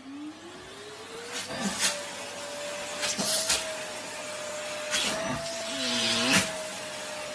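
Vacuum cleaner motor spinning up, its whine rising over the first second and a half and then running steadily. The hose nozzle is held to a person's lips, and a few short knocks come from handling it.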